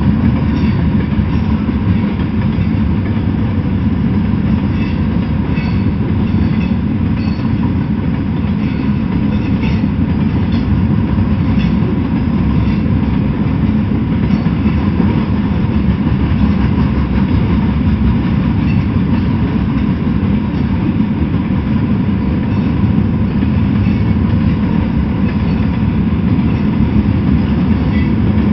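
Freight train rolling past: a steady rumble of steel wheels on the rails, with scattered light clicking and rattling from the cars.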